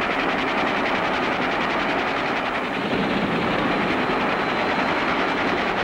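Cartoon vehicle engine sound effect: a steady, fast mechanical rattle that runs on unchanged.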